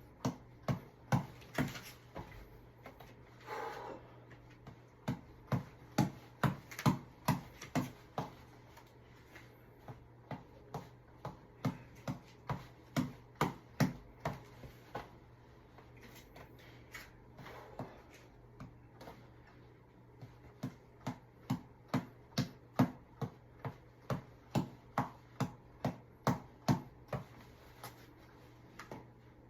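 A reflex tap ball being punched: runs of sharp taps at about two to three a second, broken by short pauses where the rally is lost and restarted.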